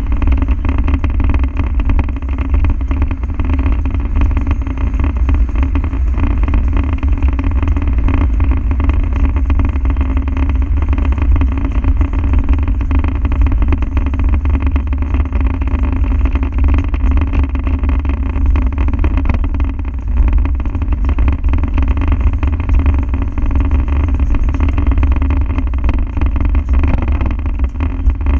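Land Rover Defender's diesel engine running steadily, a deep even drone with no revving.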